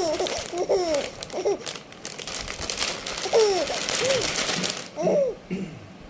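A small child's high-pitched voice babbling in short sounds that rise and fall in pitch. Between them, around the middle, comes a stretch of crinkly rustling noise.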